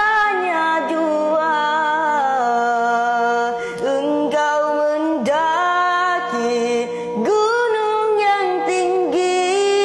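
A boy singing a nasyid in a melodious voice, holding long notes that bend and slide between pitches.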